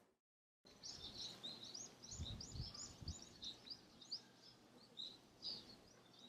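Small birds chirping faintly in a quick run of short, high chirps, with a few low thuds about two to three seconds in.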